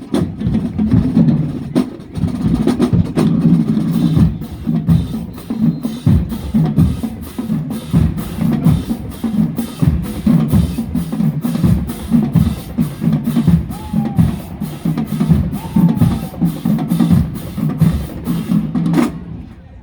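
Marching band drumline playing a driving cadence: bass drums and snare drums with sharp stick clicks, stopping abruptly near the end.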